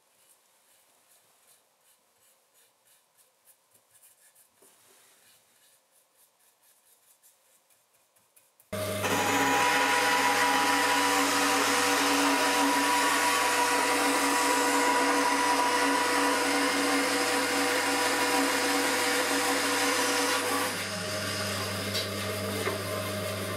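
Band saw switched on about a third of the way in after faint handling ticks, then running with a steady motor hum. Its level dips a little near the end.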